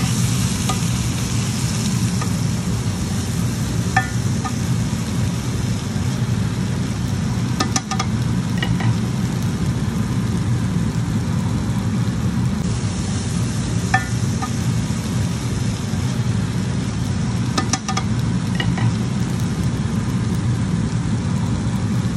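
Cut vegetables and diced boiled potatoes sizzling steadily in a frying pan, over a steady low rumble, with a few faint clicks now and then.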